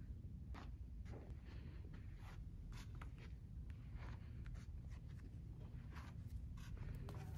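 Faint paper rustles and flicks of book pages being leafed through, coming irregularly a few times a second over a low steady room rumble.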